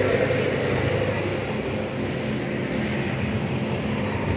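Home-built go-kart's small engine running steadily at idle.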